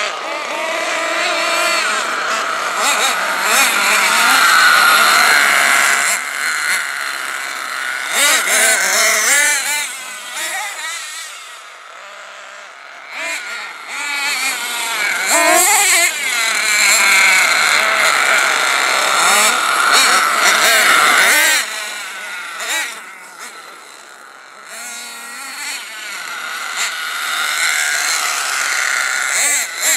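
Hot Bodies GTX2 RC racing truck's dual .26 nitro engines revving high and easing off over and over as it races around, the pitch constantly rising and falling. It fades twice as the truck gets far off and comes back loud, with a sudden cut in the revs about two-thirds of the way through.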